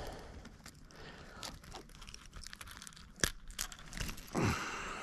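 Close handling noises from rebaiting a fishing hook by hand: scattered small crinkles and clicks, with one sharp click about three seconds in and a brief rush of noise near the end.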